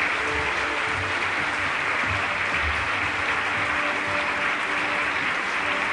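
Audience applauding steadily after a song, a dense even clapping, with faint held notes of music underneath.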